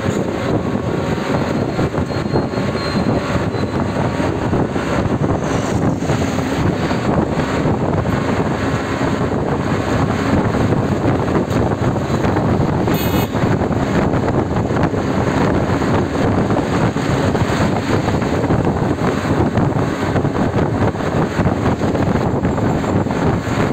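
Steady rumble of a moving vehicle on a city road, with wind buffeting the microphone through the open side.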